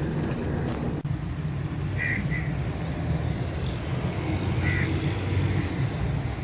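Outdoor background noise: a steady low rumble, with a few brief high chirps about two seconds in and again near five seconds.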